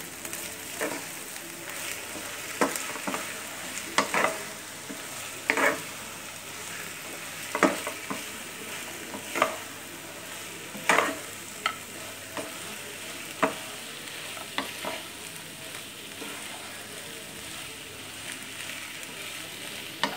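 Wooden spatula stirring and tossing fried potato strips in a thickening chilli sauce in a nonstick pan, over a steady sizzle. A sharp scrape or knock of the spatula on the pan comes every second or two.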